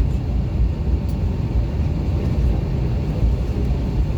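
Steady low rumble of an Airbus A321's engines and airframe, heard from inside the cabin.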